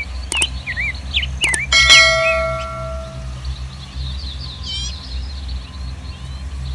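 Birds chirping over a steady low engine hum. About two seconds in, a single metallic clang rings on for about a second and a half.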